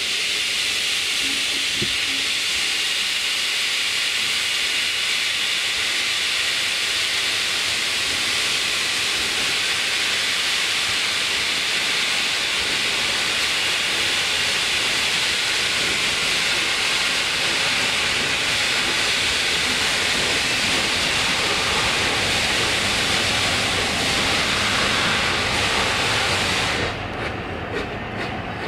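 Merchant Navy class steam locomotive 35028 Clan Line blowing steam from its open cylinder drain cocks: a loud, steady hiss that cuts off sharply about 27 seconds in.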